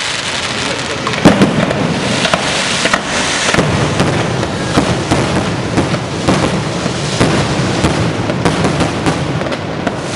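Electrically fired display fireworks going off continuously: a dense hiss and crackle of fountains and rising shells, with sharp bangs scattered through, the loudest about a second in.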